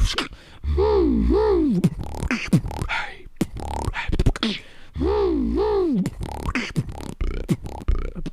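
Beatboxed imitation of an alarm: a voice whoops up and down twice like a siren over a low bass hum, with percussive mouth clicks and hits in between. The same siren pattern comes back about four seconds later.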